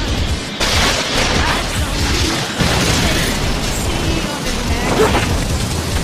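Anime battle sound effects: a dense rushing blast with booming impacts sets in about half a second in, as the fight music falls away.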